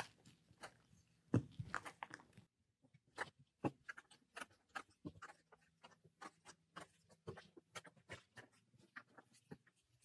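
Hand roller pressed and rolled over a cut-out stencil on a soft clay slab, impressing the pattern: faint, scattered clicks and crackles, a little louder about a second and a half in.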